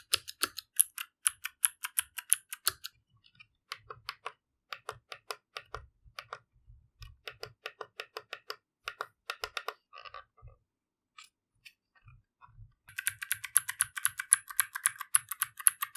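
Typing on a Shurikey Gear Hanzo mechanical keyboard with Varmilo EC Ivy V2 switches: very noisy keystrokes, in fast runs for the first few seconds and again from about 13 seconds in, with slower, scattered keypresses in between.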